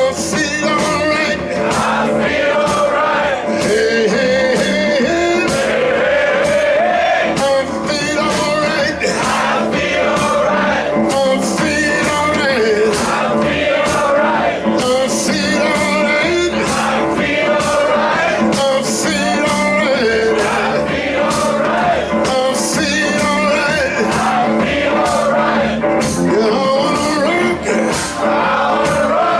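Live blues-rock band playing with singing over a steady drum beat.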